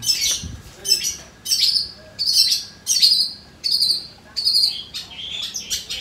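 Long-tailed shrike (cendet) giving a run of short, harsh, scratchy calls, about two a second, turning to thinner, higher twittering near the end.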